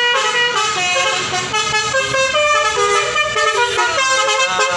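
Basuri telolet horn on a tour bus playing a melody: several tones sound together and step from note to note a few times a second, without a break.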